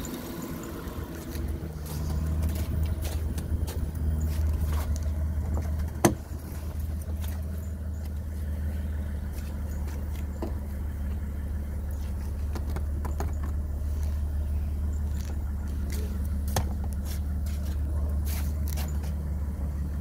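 1996 Mitsubishi 3000GT's 3.0-litre V6 idling steadily, a low even hum, with a few sharp knocks and clicks over it, the loudest about six seconds in.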